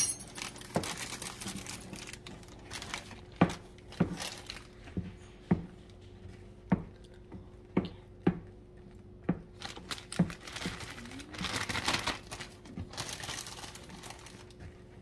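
A spoon stirring marshmallows and butter melting in a small pot, knocking against the pot about once a second, with a stretch of sticky rustling near the end.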